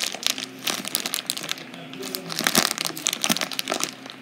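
Plastic bag crinkling as clumps of blue play sand pour from it onto a pile, a dense run of crisp crackles and soft crunches, loudest about two and a half seconds in.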